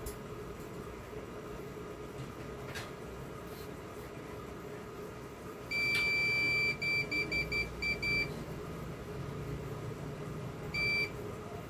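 Digital multimeter's continuity beeper sounding as its probes are touched to the legs of a removed power MOSFET: one steady beep of about a second, then a run of short broken beeps, and one more short beep near the end.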